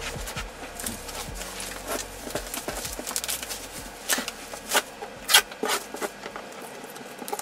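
Bubble wrap crinkling and rustling as it is pulled off and handled around a large cardboard box, with several sharp crackles about four to six seconds in.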